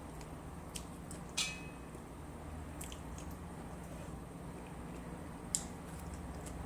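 Close-up eating sounds: chewing and biting on crispy fried tilapia, with a few sharp clicks of utensils on a plate, one with a brief ring, over a steady low hum.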